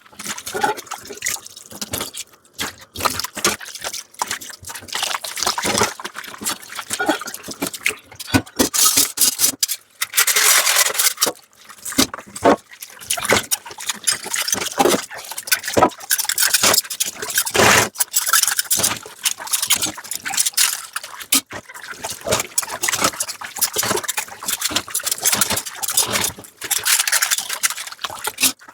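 Dishes being washed by hand at a sink: water running and splashing, with frequent irregular clinks and knocks as the dishes are handled.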